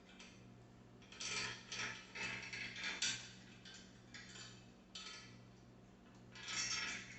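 Bicycle roller chain clinking and rattling in irregular bursts as it is handled and fitted back onto the rear sprocket.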